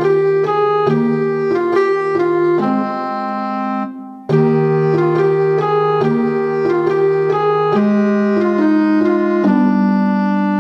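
Background music: a keyboard melody of held notes over a bass line, with a brief break about four seconds in.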